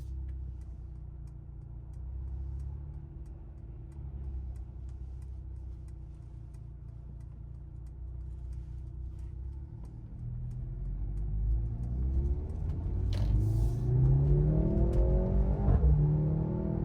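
2023 Mercedes-AMG C43's turbocharged 2.0-litre four-cylinder engine cruising with a steady low drone, then accelerating hard from about ten seconds in, its note rising through the gears. Two sharp cracks come during the pull, the second near the end, each followed by the note climbing again.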